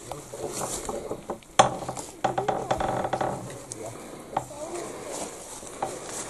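Knocks and clicks from an old wooden door being handled, with a creak lasting about a second, starting a little over two seconds in.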